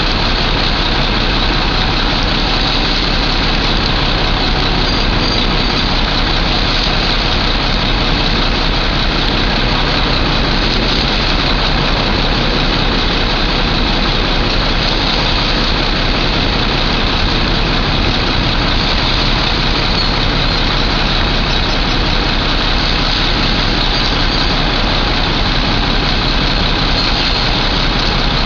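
A large engine idling steadily: a constant, unchanging loud running noise.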